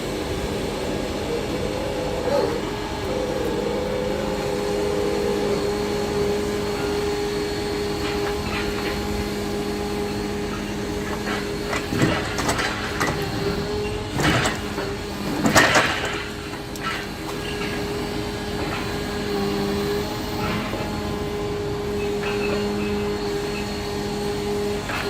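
A logging truck's engine and hydraulic loader run with a steady hum while logs are unloaded. Several sharp knocks, logs striking each other or the ground, come roughly halfway through.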